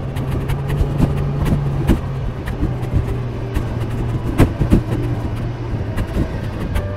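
Yamaha YZF-R6 inline-four engine running at a steady, unchanging pitch while the bike rolls slowly along a narrow lane. Scattered short clicks and knocks are heard over it.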